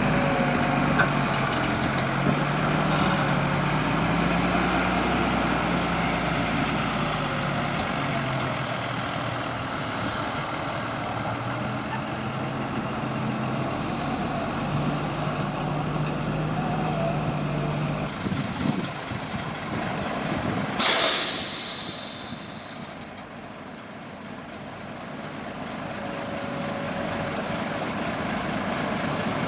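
Diesel dump truck engine running, its pitch rising and falling, with a loud hiss of air released from the air brakes, about two seconds long, roughly two-thirds of the way through.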